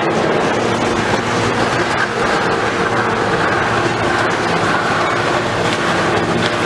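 Heavy demolition machinery working: a steady, loud mechanical din with engine noise and scattered faint knocks.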